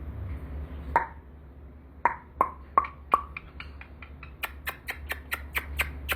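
A run of short, sharp kiss-like mouth clicks: a few spaced ones at first, then quickening to about four a second.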